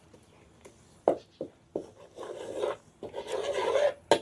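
A few light knocks, then two scraping strokes of a spatula against a wok as curry paste is worked into coconut milk.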